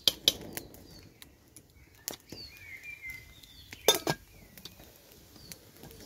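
Metal spoon clinking and knocking against a metal camping pot while pasta is stirred. There are a few sharp clinks, and the loudest two come close together about four seconds in.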